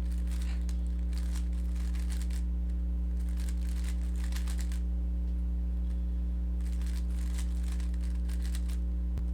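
A Rubik's cube being turned quickly by hand, its plastic layers clicking in three fast runs of turns with short pauses between, over a steady low electrical hum.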